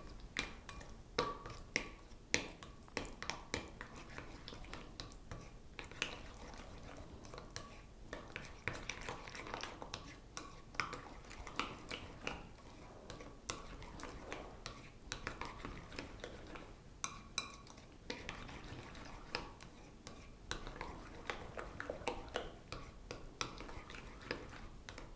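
Salad dressing being stirred in a bowl: a utensil scraping through it, with frequent irregular light clicks and taps against the bowl.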